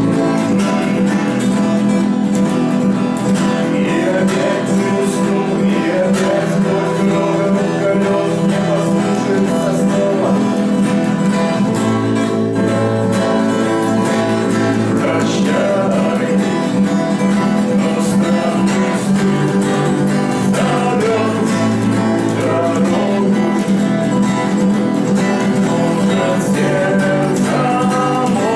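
Acoustic guitar strummed steadily with a voice singing over it, a live song performance.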